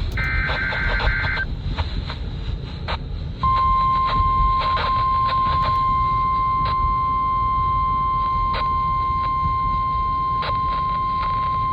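NOAA Weather Radio alert tones received over the air: a one-second burst of SAME digital header data, then, after a pause of about two seconds, the steady 1050 Hz warning alarm tone, which holds to the end. Under it all runs radio hiss with faint crackles.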